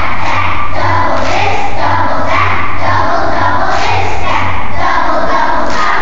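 Children's choir singing, loud, over recorded backing music with a regular low beat.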